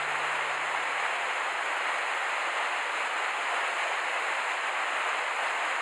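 Steady rushing of a small waterfall cascading over rocks into a pool on a mountain stream.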